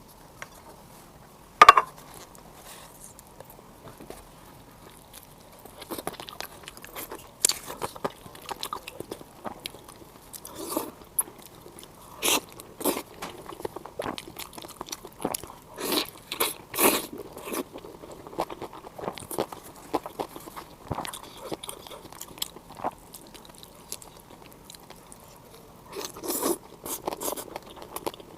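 A person eating close to the microphone: irregular crunching, biting and chewing sounds. A sharp click sounds about two seconds in.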